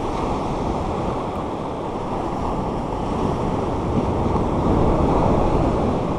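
Ocean surf breaking and washing up the sand close by, with wind on the microphone. It gets louder near the end as a wave breaks and its wash runs in.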